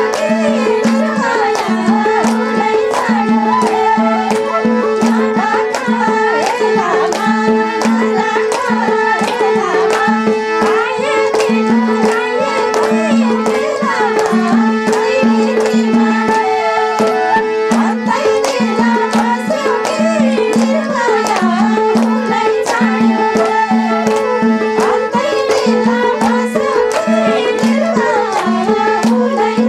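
Live Nepali lok dohori folk music: a madal hand drum keeps a fast steady beat under a held harmonium drone, while women sing a wavering melody and clap along.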